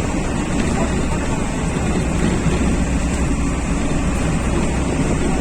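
Steady low rumble of a running vehicle, even throughout with no distinct events.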